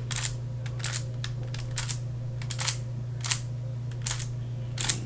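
Plastic layer turns of a Giiker Super Cube smart 3x3 puzzle cube being scrambled by hand: sharp separate clicks at an uneven pace, about one or two a second, over a steady low hum.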